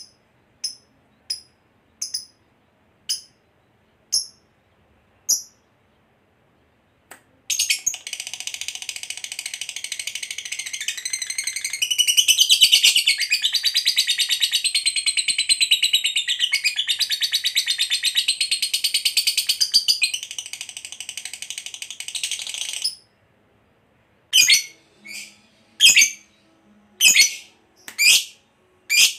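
Lovebird calling: sharp single chirps about once a second. Then a long, fast, unbroken chatter, the 'ngekek panjang' trill, lasting about fifteen seconds. Sharp chirps return, coming faster, near the end. A long trill like this is the mark of a lovebird in full song ('gacor').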